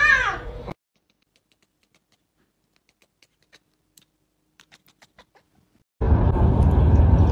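A cat's meow trails off in the first second, followed by near silence broken by a few faint ticks. About six seconds in, a steady outdoor noise begins abruptly.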